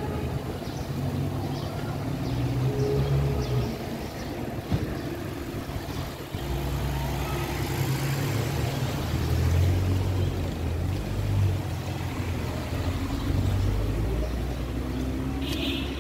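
City street ambience dominated by a low, steady rumble of motor-vehicle engines, swelling and easing, loudest around the middle.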